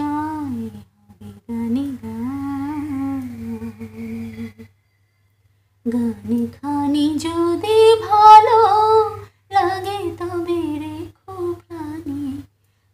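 A woman's voice singing a Bengali song unaccompanied, humming the melody for the first few seconds. After a short pause about five seconds in, she sings the words more fully and loudly.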